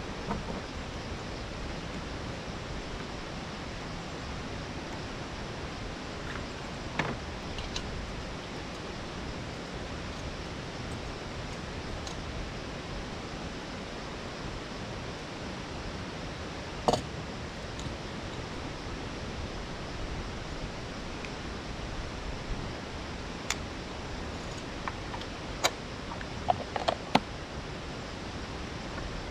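Steady, even rush of a waterfall's cascading water, with a few scattered sharp clicks and knocks, the loudest about halfway through and several close together near the end.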